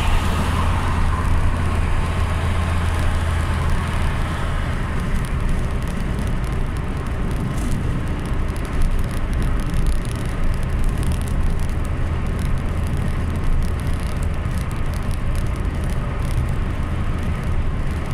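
Steady motor-vehicle noise: a constant low rumble with road noise over it.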